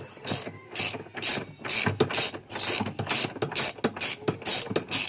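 Ratchet wrench with a 13 mm socket being worked back and forth to undo a bolt on a washing machine's clutch mechanism (gearbox), its pawl clicking in a steady run of strokes about two to three a second.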